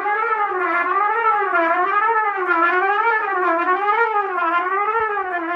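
A trumpet holding one note while its pitch is bent smoothly up and down, about twice a second, in a slow, wide wave. This is a tone exercise on the trumpet.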